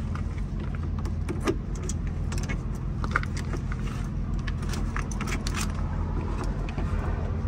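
Scattered metallic clinks and clicks from gloved hands working the blue filler cap and filler neck of a truck's AdBlue tank, over a steady low hum.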